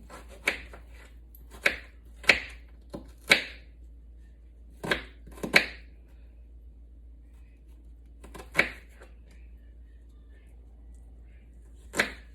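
Kitchen knife chopping an onion on a cutting board: sharp, irregular knocks, several in the first half, then a pause and two more, single strokes.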